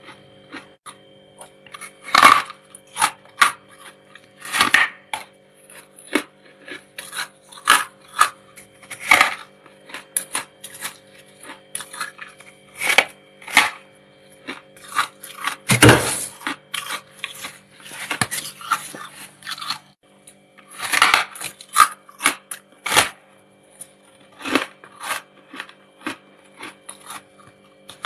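Freezer frost being bitten and chewed close to the microphone: crisp, irregular crunches, one every second or so, the loudest near the middle, over a faint steady hum.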